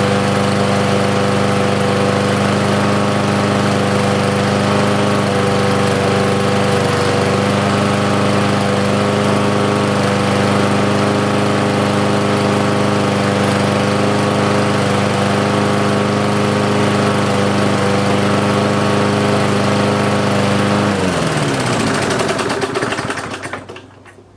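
Briggs & Stratton single-cylinder four-stroke lawnmower engine running steadily at speed, freshly started after sitting unused for years. About 21 seconds in, its pitch drops and it winds down to a stop as the air intake is choked off with a foot.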